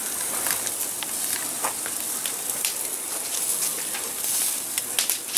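Steaks sizzling on a hot barbecue grill: a steady hiss with small crackles and pops of fat. Near the end come a few sharp knocks as the grill's metal lid is lowered.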